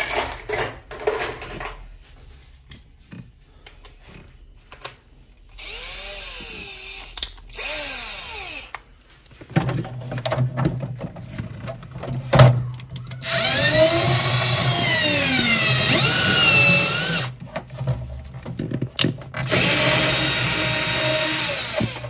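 Electric drill running in bursts while drilling into a refrigerator's plastic inner wall, its motor pitch rising and falling as the load changes. Two short bursts come first, then two longer, louder runs in the second half, with scattered knocks and clicks between them.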